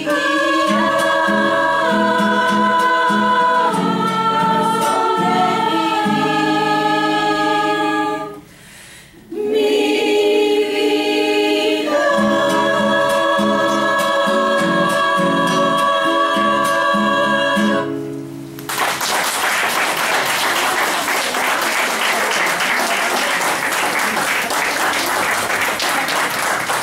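A choir singing long held chords with guitar. There is a brief break about a third of the way in, then a long final chord. Audience applause breaks out about two-thirds of the way in and carries on.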